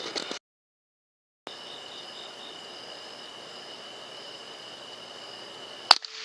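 A steady, thin, high-pitched trill over a faint hiss, with a few short chirps early on, then a single sharp crack of an air rifle shot near the end.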